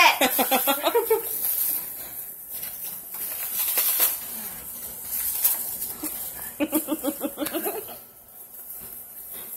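Clear plastic wrap crinkling and tearing as it is pulled and unwound from a tightly wrapped bundle. Laughter breaks in near the start and again about two-thirds of the way through.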